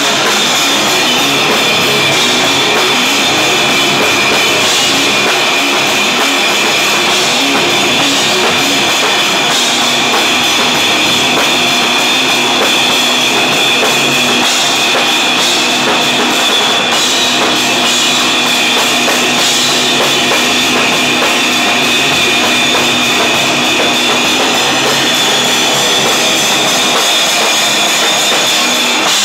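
Live heavy rock band playing loudly, with a drum kit and electric guitar at full volume.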